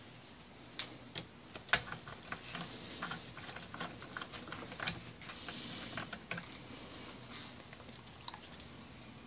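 Irregular small metallic clicks and taps of bolts and a hand tool being handled on the top of a bare Honda Rebel 250 cylinder block, with two sharper knocks about two and five seconds in.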